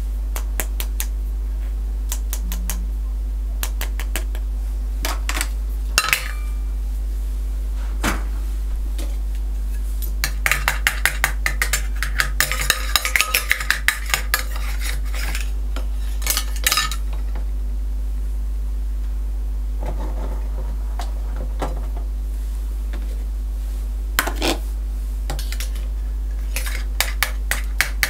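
Plastic toy food and toy kitchen pieces clicking and clinking against a small stainless-steel toy frying pan, in scattered taps with a busy run of rapid clatter about halfway through. A steady low hum lies underneath.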